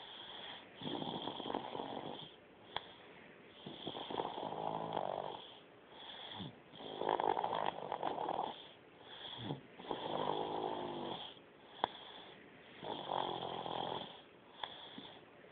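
Snoring in a slow, even rhythm, one long breath roughly every three seconds, with a couple of small clicks between breaths.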